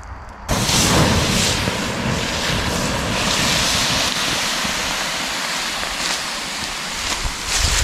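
Water poured from a canteen onto a campfire's hot coals, hissing and sizzling as it turns to steam to put the fire out. The hiss starts suddenly about half a second in and keeps on.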